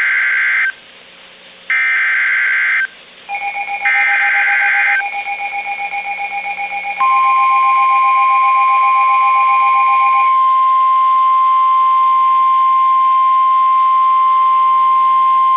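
NOAA Weather Radio alert sequence. It opens with three short bursts of SAME digital header data. A weather-radio receiver's rapid beeping alarm starts about three seconds in and stops about ten seconds in. From about seven seconds in, the steady 1050 Hz warning alarm tone runs to the end, heralding a severe thunderstorm warning.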